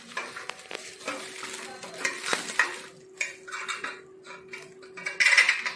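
Steel bolts and stainless-steel conveyor frame parts clinking and scraping while being handled, with plastic stretch wrap crinkling, louder for a moment about five seconds in.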